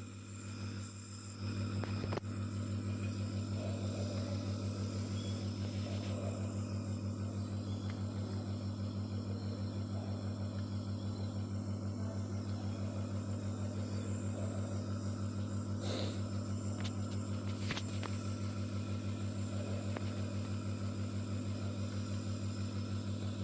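A steady low hum, as from a small mains-powered motor or compressor, with a fast, even pulsing; a few faint clicks sound over it.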